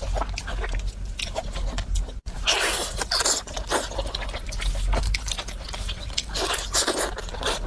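A person chewing and crunching food, with many quick, irregular crisp bites and wet mouth sounds, and a brief break about two seconds in.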